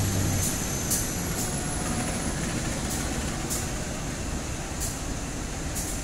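A passenger train rolls past behind a CC201 diesel-electric locomotive, with a steady rumble. A thin, high wheel squeal runs through the first half and stops about three seconds in. Sharp clicks from the wheels sound at irregular intervals.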